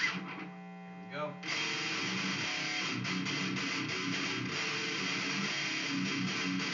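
Heavily distorted electric guitar playing a deathcore riff. About half a second in, the riffing breaks off and one note rings for about a second, rising in pitch near its end, before the chugging riff starts again.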